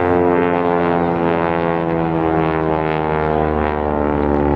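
North American T-6 Texan in flight, its nine-cylinder Pratt & Whitney R-1340 Wasp radial engine and propeller running steadily, the pitch falling slowly as it passes.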